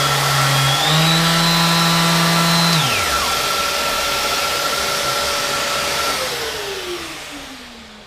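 Mac Allister MSDLS160 electric detail sander running with a vacuum cleaner hooked up for dust extraction. The sander is switched off about three seconds in and its motor winds down quickly. The vacuum cleaner runs on and is switched off about six seconds in, its motor whine falling away slowly.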